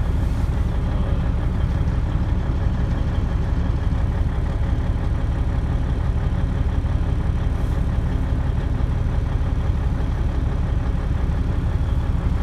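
Vehicle engine idling with a steady low rumble, heard from inside the cab.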